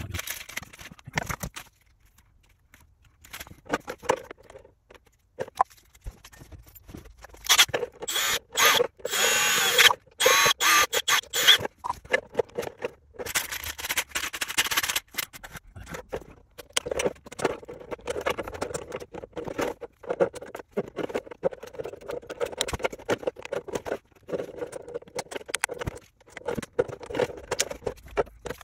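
Small parts and tools handled at a workbench while parts are fitted to a clear plastic RC car body: scattered clicks and rustles, with a louder stretch of scraping and squeaking from about eight to fifteen seconds in.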